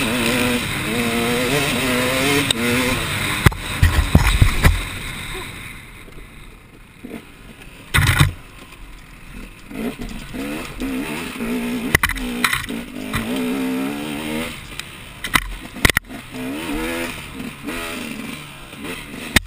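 Off-road racing engine revving up and down over and over, with sharp knocks and thuds about four, eight, twelve and sixteen seconds in.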